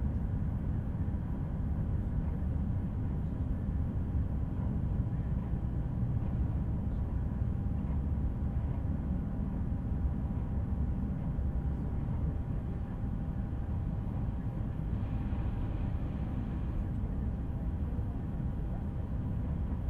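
Steady low rumble of a moving train, heard from inside the carriage, with a faint steady hum above it.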